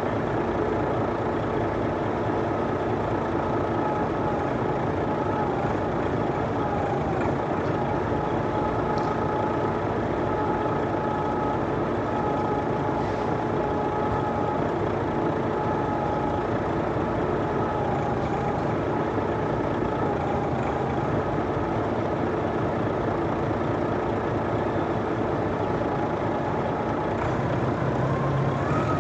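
Heavy diesel vehicle engine running steadily, a dense rumble with a steady whine above it, picking up a little near the end.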